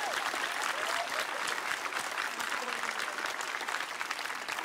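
A large crowd applauding, the dense clapping easing off gradually.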